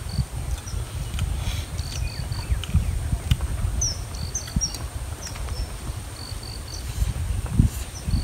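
Wind buffeting the microphone in a low, uneven rumble, with a bird repeating a short, high three-note call about every two seconds and a few other chirps.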